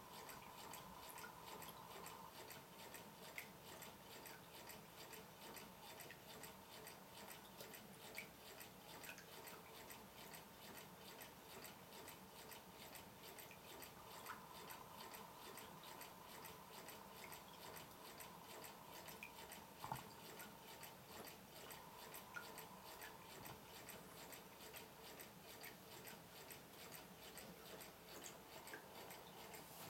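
Quarter-scale Rider-Ericsson hot air pumping engine running slowly: faint mechanical ticking from its moving parts and water dripping from its pump spout into a bucket, with one sharper click about twenty seconds in.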